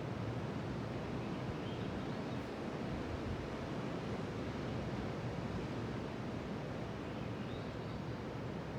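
Pacific Ocean surf: a steady, even wash of waves with no single break standing out.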